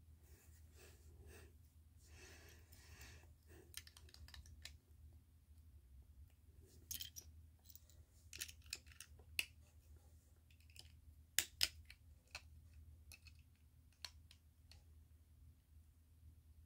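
Plastic LEGO bricks clicking and clattering as hands pick up and handle pieces: scattered light clicks, with two louder clicks close together about two thirds of the way in, and a soft rustle near the start. A faint steady hum runs underneath.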